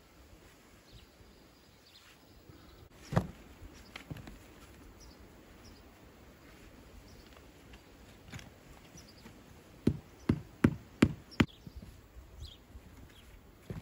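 Sharp knocks of a tool on stone during wall building: single knocks about three and four seconds in, then a quick run of about six taps near the end.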